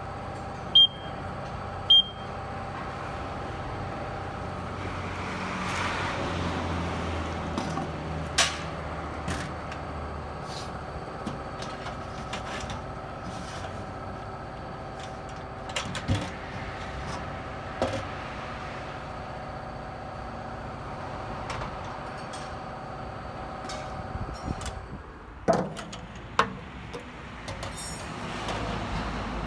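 An automatic-transmission-fluid exchange machine beeps twice as its panel buttons are pressed, then its pump runs with a steady hum for about twenty seconds and stops. The pump is draining the oil left in the hoses back to the waste-oil tank. A few knocks follow near the end.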